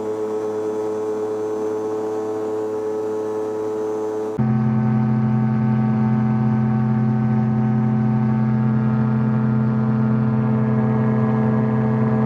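Rotax 582 two-stroke ultralight engine and propeller running at high power with a steady drone. About four seconds in, the sound cuts to a louder, lower drone of another Rotax 582-powered ultralight, an ASAP Chinook, in cruise flight.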